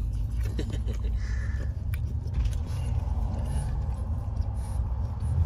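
Steady low rumble of a car's road and engine noise, heard from inside the cabin.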